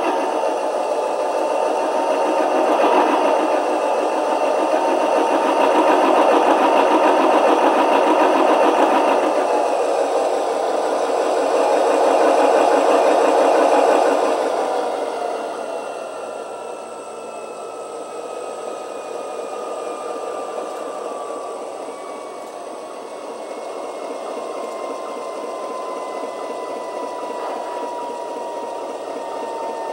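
QSI Titan Q3 decoder's GE FDL-16 diesel prime mover sound, played through a small speaker. The engine runs loud and steady, then about fourteen seconds in drops to a quieter run as it throttles down, leaving a whine that falls slowly in pitch as the turbocharger spools down.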